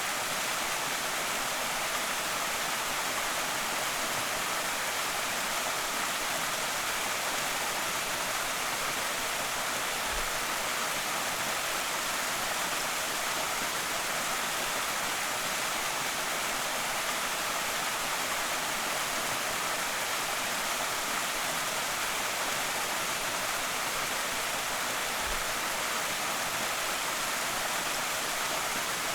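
Creek waterfall: water pouring over rock in a steady, unbroken rush, mostly a bright hiss with little low rumble.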